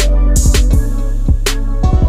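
Background music with a drum beat over a deep, steady bass line.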